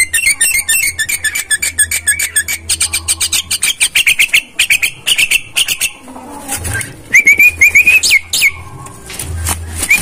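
Javan myna (jalak kebo) calling: a rapid, dense run of clicking, chattering notes mixed with short whistled notes, then a louder series of short rising whistles near the end. The uploader presents this as the call of a bird wanting to mate.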